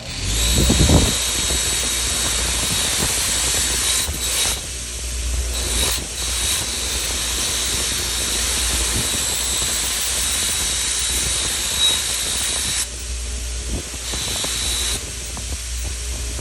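Motor-driven scissor sharpener started up, its Scotch-Brite wheel spinning with a steady high whine while a scissor blade is held against it for cleaning, giving a loud hiss. The hiss drops away briefly a few times as the blade is lifted off and set back on the wheel.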